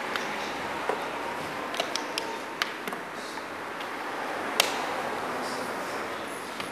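Short sharp clicks of chess pieces being set down on the board and a chess clock's button being pressed, about eight in all at uneven spacing, the loudest about four and a half seconds in, over a steady hiss.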